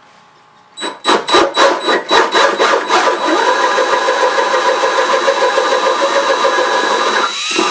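Power drill boring into the wooden edge of a door with a Forstner bit to enlarge the latch hole. It starts about a second in with short, evenly spaced pulses, then runs steadily through the wood, and winds down with a falling pitch near the end.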